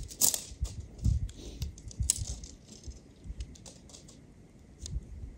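Irregular light clicks and rattles with a few soft low thuds, busiest in the first two seconds and sparser after.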